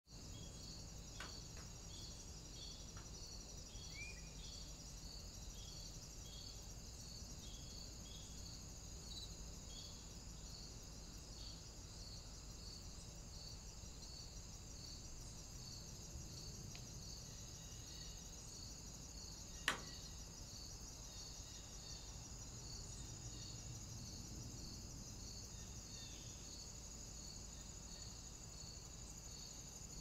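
Steady, faint, high-pitched insect-like chirring with a regular pulse about twice a second, with one sharp click about 20 seconds in.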